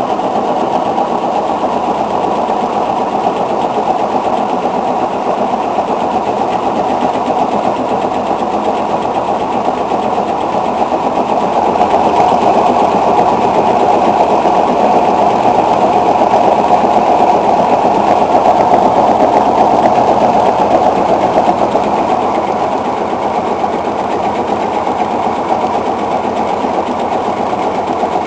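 Atlas 5.0 washing machine in its spin cycle: a steady, fast mechanical rattle that grows louder around the middle and eases off again toward the end.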